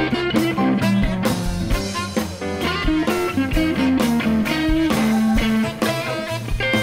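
Live electric blues band playing an instrumental passage: Fender electric guitar lines over bass guitar and drums.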